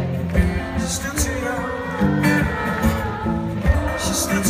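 Live acoustic guitar strummed with singing over it, recorded from the audience at a concert.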